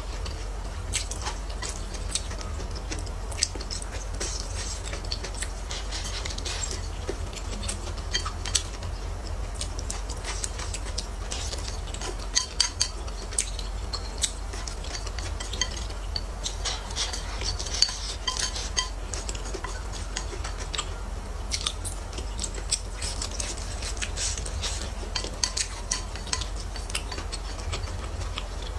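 Wooden chopsticks clicking and scraping irregularly against a ceramic plate as food is picked up, with close-miked chewing, over a steady low hum.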